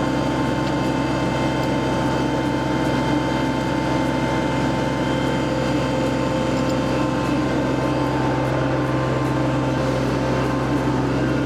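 Kubota compact tractor's diesel engine running steadily.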